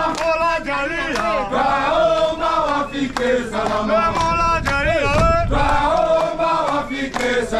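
A group of men singing a chant-like song together, with sharp hand claps through it.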